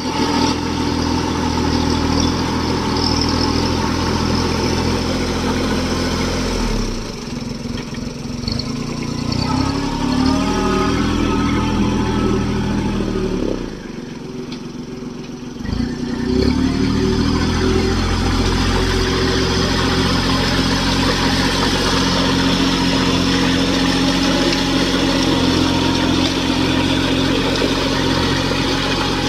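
Kubota mini tractor's engine running steadily. Its speed drops and picks back up twice: about seven seconds in, and again around fourteen seconds, settling back to a steady run after each.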